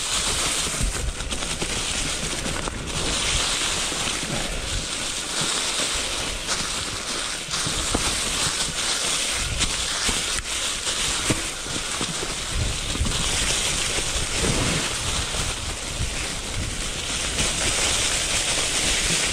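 Mountain bike tyres rolling over a trail thickly covered in dry fallen leaves, a steady rustling crackle, with wind buffeting the microphone and scattered knocks as the bike rides over bumps.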